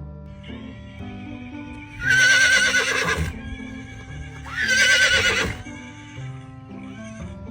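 An animal giving two loud, quavering calls, each about a second long, the second starting low and sliding up, over background music.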